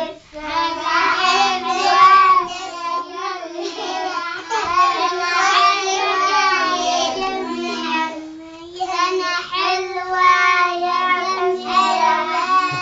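A group of young children singing a birthday song together in chorus.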